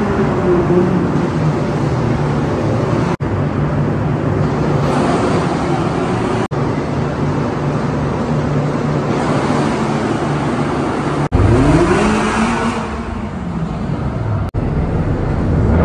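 Car engines running through loud aftermarket exhausts in an underground car park, with one sharp rev about eleven seconds in that rises and then falls away.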